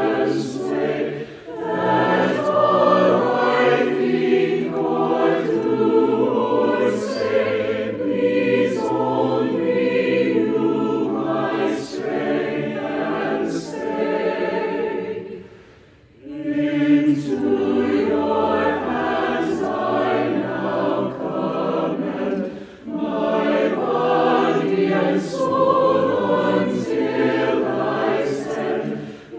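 A virtual choir of many voices, each recorded separately and mixed together, singing a sacred choral piece in several parts. About halfway through the singing breaks off briefly between phrases, then resumes.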